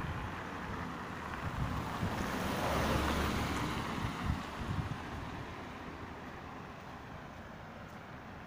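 A car passing on a wet road: its tyre hiss swells about two to three seconds in, then fades as it drives away. Gusts of wind buffet the microphone near the start.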